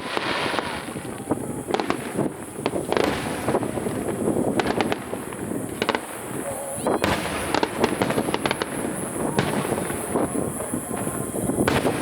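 Fireworks display: a star mine barrage of shells bursting in quick succession, many sharp bangs and crackles overlapping, with denser clusters of reports every couple of seconds.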